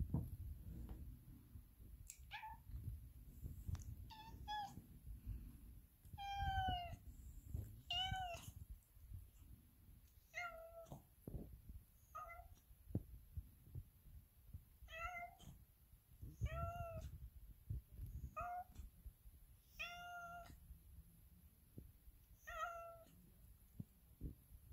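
Black long-haired domestic cat meowing repeatedly: about a dozen short meows, one every second or two.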